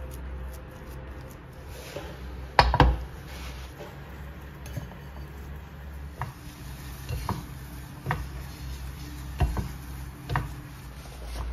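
Spatula stirring and scraping thick choux pastry dough in a small saucepan, cooking the dough over low heat. The spatula knocks against the pan every second or so, loudest about two and a half seconds in, over a low steady hum.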